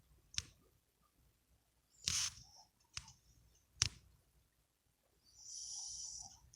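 A sleeping dog's snoring breath: one hissing, wheezy breath of about a second near the end. Earlier come four short, sharp clicks, one of them a longer noisy burst about two seconds in.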